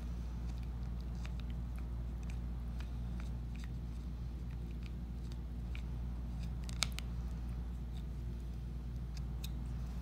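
A cat gnawing on a wooden drumstick: scattered, irregular small clicks of teeth on wood, the loudest about seven seconds in, over a steady low hum.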